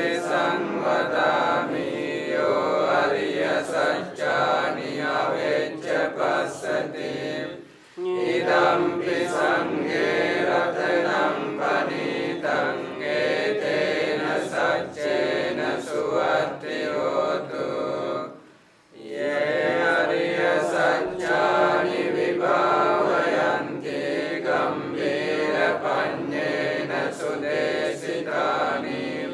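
A group of Theravada Buddhist monks chanting Pali paritta together in unison. The chant pauses briefly twice for breath, about a third of the way in and again just past the middle.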